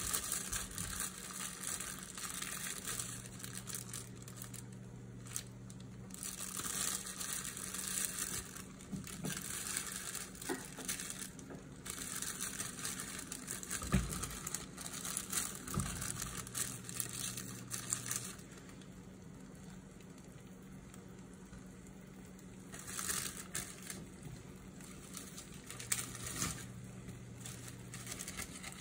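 Crepe batter frying in a nonstick pan, crackling and sizzling in uneven spells, over a faint steady hum.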